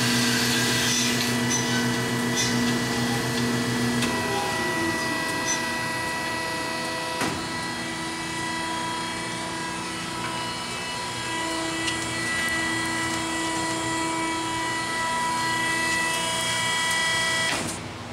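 Marvel 15A9 automatic horizontal band saw running in manual mode, a steady machine hum and whine. About four seconds in, one of its motors switches off and winds down with a falling pitch while the rest keeps running; near the end the whole machine cuts off suddenly as the stop button is pressed.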